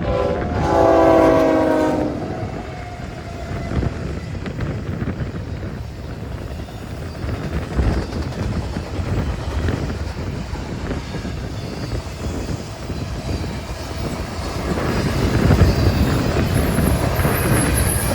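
A freight locomotive's air horn sounds a chord of several steady tones and cuts off about two seconds in. The lead unit is a BNSF GE ES44C4. The long train of intermodal stack cars then runs steadily past, and the noise swells again near the end.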